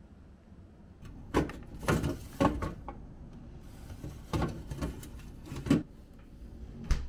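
Refrigerator freezer door and its plastic ice bin being opened and handled: a series of sharp plastic clunks and rattles in two clusters, with one more knock near the end.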